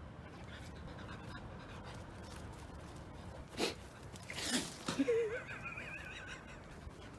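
A small dog panting in a few quick noisy huffs around the middle, followed by a short wavering whimper.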